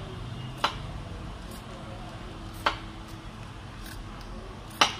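Three sharp clicks, about two seconds apart, the last one the loudest, as a plastic wall-hung WC fixing bush is turned by hand on its threaded steel rod; a steady low hum runs underneath.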